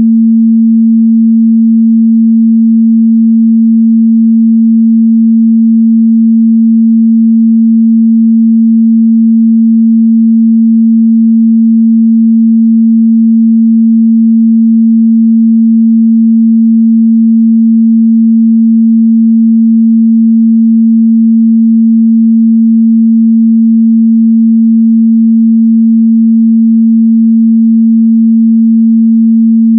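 A steady, loud 226 Hz sine-wave test tone, a single pure pitch held without change.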